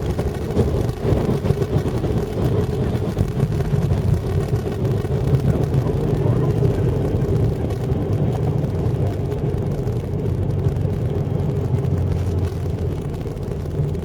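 Airliner cabin noise during landing: a steady low rumble of the jet rolling along the runway, with engine noise underneath.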